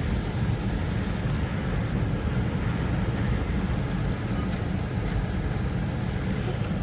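A Cadillac Escalade driving, heard from inside the cabin: a steady low rumble of engine and tyres with no sudden changes.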